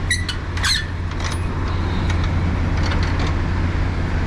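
Semi-trailer landing gear being hand-cranked to set the trailer's height for coupling, with scattered metallic clicks and clinks from the crank. A truck engine idles with a steady hum underneath.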